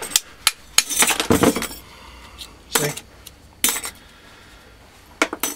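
Thin steel transformer laminations clinking as they are pulled from the loosened core and dropped onto a pile of loose plates, as a scatter of separate metallic clinks with a cluster about a second in.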